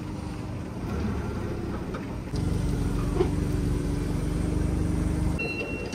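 Cat forklift engine running steadily, getting louder about two seconds in as it works the pallet into the trailer. Near the end, its high-pitched reversing alarm starts beeping.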